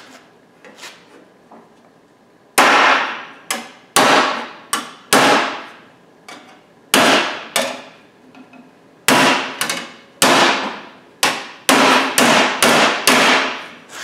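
Hand hammer beating a sheet of 18-gauge steel to form a bend in a rust repair panel: after a few faint taps, well over a dozen sharp, ringing metal blows come at an uneven pace from about two and a half seconds in, each ringing out briefly.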